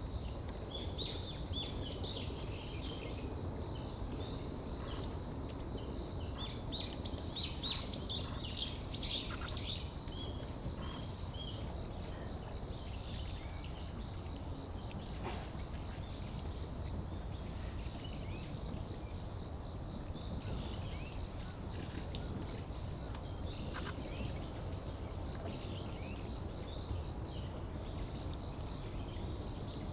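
Crickets chirping in a continuous high pulsing trill, with scattered short bird calls over the first ten seconds or so.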